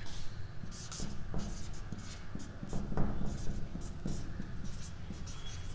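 Felt-tip marker writing on a whiteboard: a quick run of short strokes with a few light taps of the tip on the board as a word is written out.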